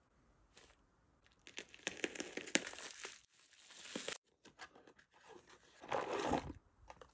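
Plastic mailer packaging being torn open and crinkled by hand, in several irregular bursts of rustling and tearing.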